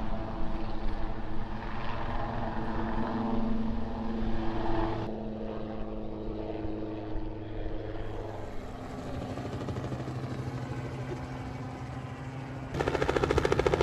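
Helicopters flying past: a steady rotor and engine drone whose tone shifts abruptly twice. Near the end it gives way to a small helicopter passing close overhead, its rotor beating loudly and rapidly.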